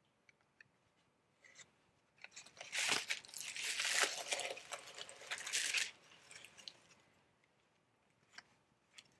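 Tissue paper and a plastic blister-card package crinkling and rustling as the package is handled in an open gift box. The crinkling is loudest for about four seconds in the middle, with a few small clicks and rustles before and after.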